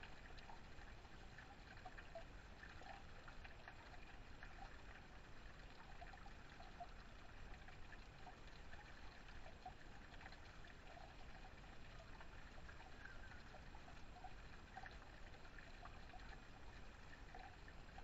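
Small backyard waterfall: water spilling off a flat metal ledge and trickling down a stone wall, faint and steady.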